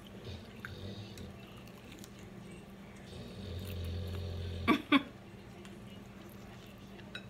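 A dog begging for food at the table, giving two short whining yelps about five seconds in.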